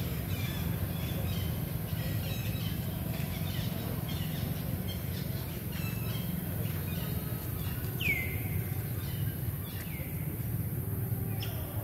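Outdoor ambience: scattered bird chirps over a steady low hum, with two sharp downward-sweeping calls about eight and ten seconds in.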